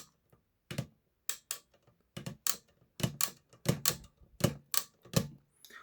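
Erika S portable typewriter's line-space lever being worked repeatedly, its pushing pawl stepping the platen round: a series of sharp mechanical clicks, often in close pairs, about two to three a second.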